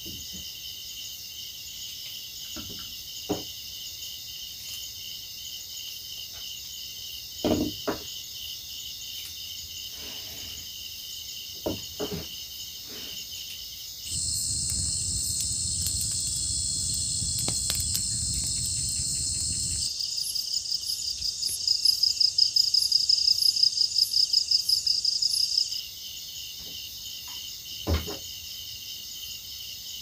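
Steady chorus of night insects trilling in high, pulsing tones. Partway through a louder, fast-pulsing insect call takes over for about six seconds, just after a low rushing noise of similar length. A few sharp knocks break in now and then.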